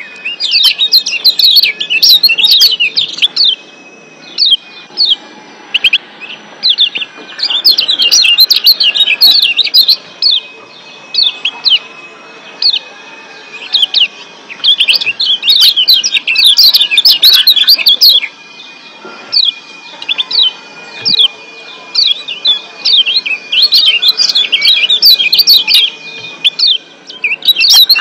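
Kecial kuning (Lombok yellow white-eye) giving sharp 'ciak' chirps: several fast, dense bursts of rapid chirping with single spaced chirps in between. It is the excited call that keepers play as a lure to raise other kecial's breeding drive and set them singing.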